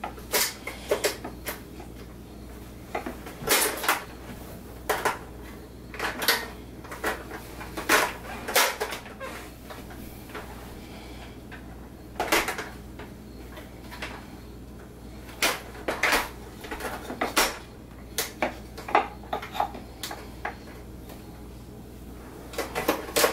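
Irregular clacks and knocks of baby toys on plastic high-chair trays: wooden peg-puzzle pieces and a plastic pop-up toy's balls and buttons, struck and handled by the babies, sometimes several in quick succession.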